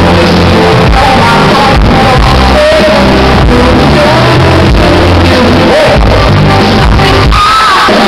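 Live band music played loud through a hall's sound system, a woman singing over bass and drums keeping a steady beat.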